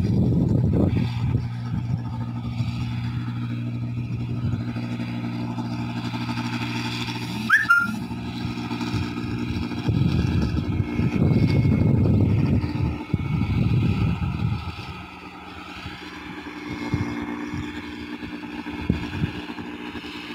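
Rice combine harvester engine running steadily, with one brief sharp click and squeak about seven and a half seconds in. Its low engine note drops away about fifteen seconds in.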